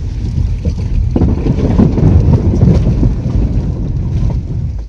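Minivan fording a shallow river: water rushing and splashing against the body and underside over a low vehicle rumble. The splashing turns loud about a second in and falls away just before the end.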